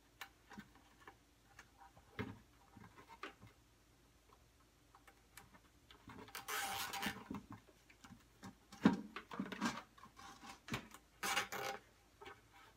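Handling noise of wire being worked through a hole in a plastic bucket and fastened to a rebar rod: light scattered clicks and taps, then several louder scratchy rubbing passes in the second half.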